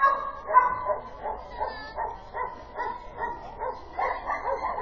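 Dog yapping rapidly and excitedly, with about three short barks a second. The barks are loudest in the first second.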